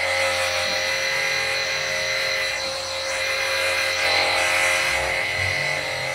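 Cordless pressure washer running, its battery-powered pump giving a steady whine over the hiss of water sprayed in the gentle, wide rinse pattern.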